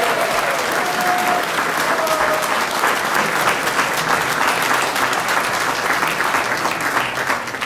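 Crowd applauding, dense clapping that tapers off near the end.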